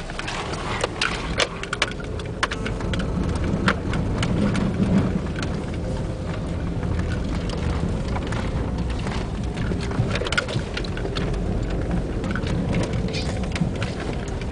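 A car driving along a dirt and gravel track, heard from inside the cabin: a steady low rumble of engine and tyres with frequent sharp clicks and patter of gravel under and against the car.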